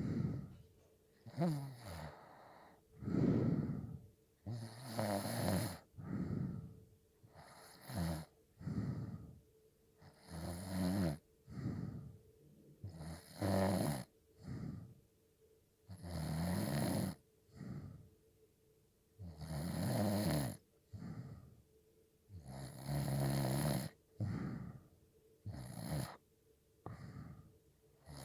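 A sleeping person snoring, with a buzzing snore on each breath coming every one to two seconds.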